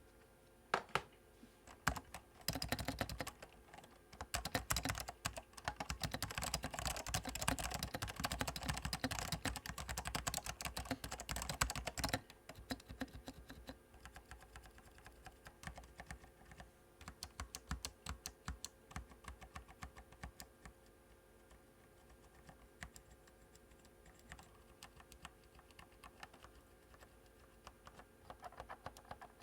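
Typing on an Apple M0116 keyboard with Alps SKCM Orange and Salmon switches, handwired with no PCB, which gives a bassy, almost dampened clack. After a few single keystrokes, fast continuous typing runs from about two and a half seconds in to about twelve seconds. It then thins to slower, lighter keystrokes.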